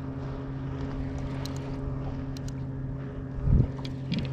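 A boat motor hums steadily at a low, even pitch, with a dull thump about three and a half seconds in.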